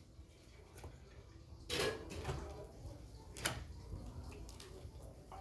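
A few short clicks and knocks of objects being handled, spaced a second or two apart: the clearest about two seconds in and another about three and a half seconds in. Low background rumble between them.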